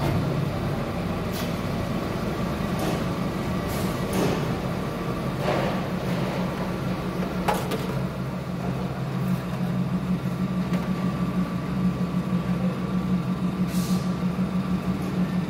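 Factory machinery running with a steady low hum, with a few short clanks and hisses over it.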